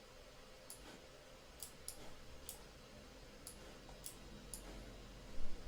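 Computer mouse clicking: a handful of short, sharp clicks at irregular spacing as a window is resized on screen. A brief louder bump comes near the end.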